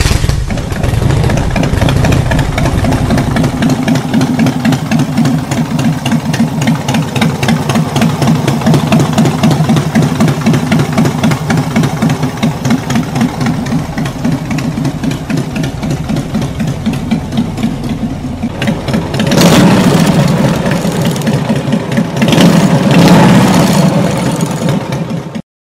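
Harley-Davidson V-twin motorcycle engine idling with an uneven, pulsing beat. It is revved twice in the last few seconds and then cuts off suddenly.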